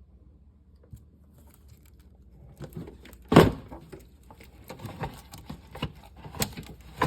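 Plastic air filter housing cover on a Honda CR-V being worked loose and lifted off: a sharp plastic knock a little past three seconds in, then a run of lighter clicks and rattles.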